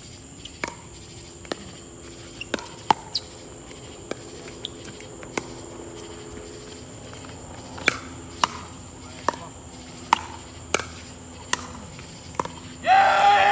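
Pickleball rally: paddles striking a plastic ball in about a dozen sharp, separate pocks, over a steady high drone of insects. Near the end a person's voice calls out loudly.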